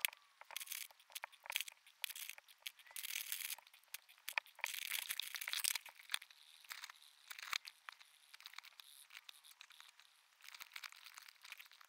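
Drawing tool scratching on paper in many quick short strokes, thickest about four to six seconds in, then a steadier scratching as a crayon colours in a letter.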